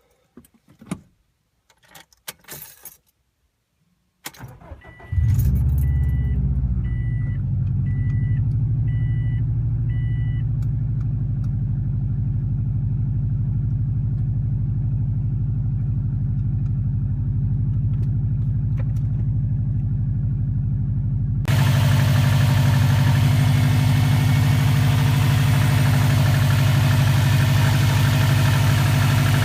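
Keys jangling, then a 2004 Subaru WRX's turbocharged EJ205 flat-four cranks and starts a few seconds in and settles into idle, with a warning chime beeping about six times just after it catches. About twenty seconds in, the idle suddenly becomes much louder, heard up close under the bonnet. The idle noise was first suspected to be piston slap but was traced to exhaust leaking from a cracked up-pipe flange.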